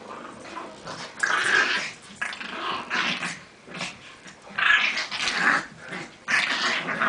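Dogs growling while play-fighting over a toy, in rough bursts of up to a second that come again and again.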